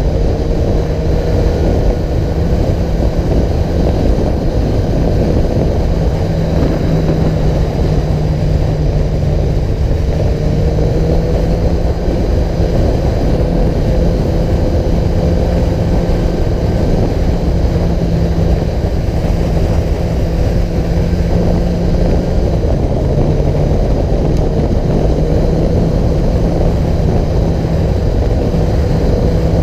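A vehicle engine running at a steady cruise under a constant low rumble of road and wind noise. Its pitch drifts only a little up and down as the speed changes slightly.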